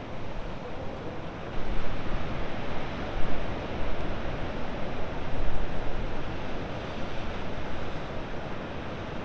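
Breaking ocean surf with wind buffeting the microphone; the rumble swells from about a second and a half in and eases again near the end.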